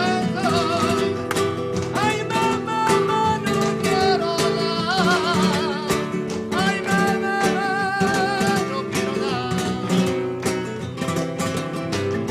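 Flamenco music: an acoustic guitar plays under a singer's long, wavering held notes.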